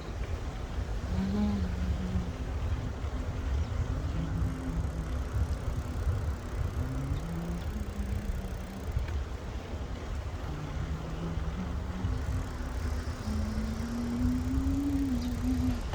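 A motor's hum that rises and falls in pitch, breaking off and starting again, over a steady low rumble.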